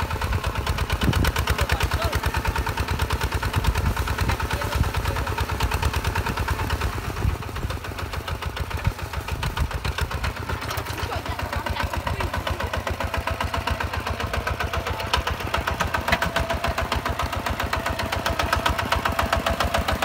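Hinota HG 155 DI single-cylinder diesel engine on a two-wheel walking tractor, running with an even, rapid beat as it pulls a plough through dry soil. It gets a little quieter for a few seconds midway, then comes back up.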